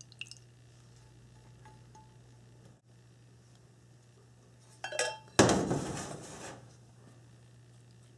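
Metal kitchenware clinking with a brief ring about five seconds in, then a loud clattering rush that fades over about a second, most likely the stainless steel pot being handled during straining. A low steady hum sits underneath.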